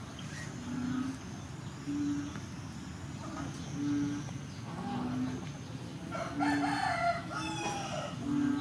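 A rooster crowing once, about two-thirds of the way in, the loudest sound here. Underneath, a short low note repeats about once a second.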